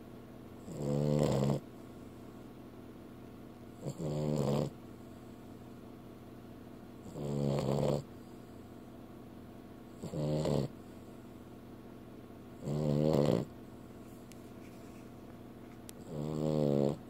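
Dog snoring while asleep: six snores, each under a second long, coming about every three seconds.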